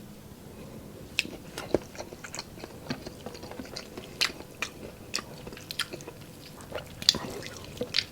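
Close-up eating sounds of a person chewing pork adobo and rice: irregular wet mouth smacks and clicks, with an occasional crunch.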